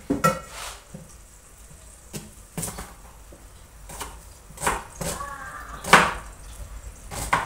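Kitchen knife chopping an onion on a cutting board: a few irregular, separate strokes rather than fast steady chopping.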